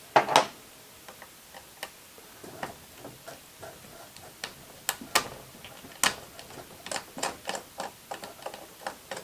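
Irregular clicks and taps of a small screwdriver and parts against the plastic housing of a Roomba 770 being taken apart, with two sharper clicks just after the start.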